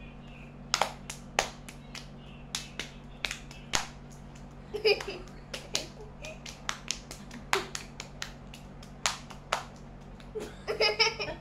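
Sharp slaps and claps of bare hands, many single strikes at uneven intervals, from an adult and a child playing a hand-slapping game, with a low steady hum behind them.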